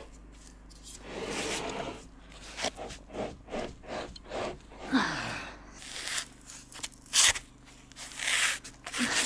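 Irregular scrapes, knocks and rustling as a PVC pipe and the sill plate lumber are handled on top of the wall, with one sharp knock about seven seconds in.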